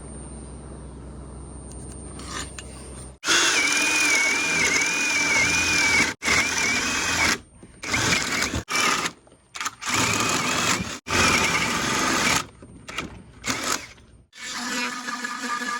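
Power drill boring 3/4-inch holes into a wooden window jamb to cut the mortise for a press-fit sash pulley. It starts about three seconds in and runs in a series of short on-off runs with a wavering whine. A low steady hum comes before it.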